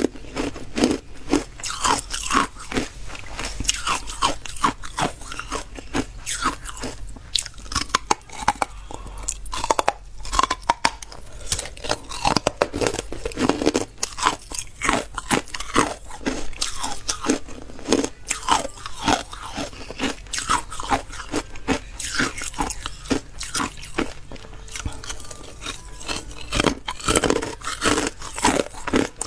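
Carbonated ice being bitten and chewed close to a small clip-on microphone: a dense, continuous run of sharp crunches and crackles, bite after bite.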